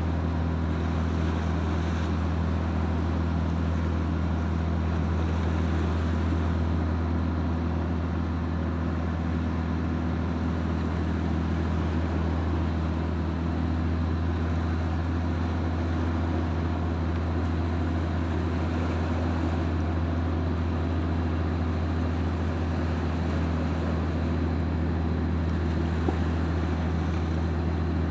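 Boat engine running with a steady low drone and a few steady humming tones above it, under a light wash of water and wind noise.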